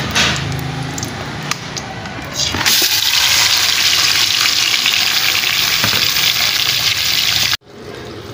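Marinated chicken hitting hot ghee in a steel karahi and sizzling hard. The sizzle starts about three seconds in, after a few clicks as the bowl is tipped, and cuts off suddenly near the end.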